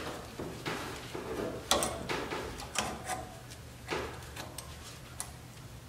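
Irregular metallic clicks and light knocks from a brake pad being pushed into the anti-rattle clips of a caliper bracket; the sharpest click comes just under two seconds in.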